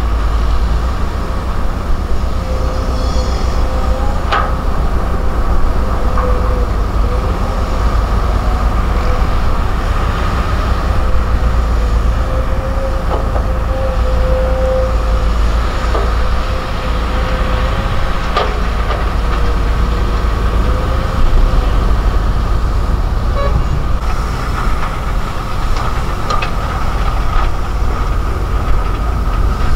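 Volvo EC210DL excavator's diesel engine working steadily under load while digging and loading, a constant low rumble with a steady whine above it. Two sharp knocks come about four seconds in and again past eighteen seconds.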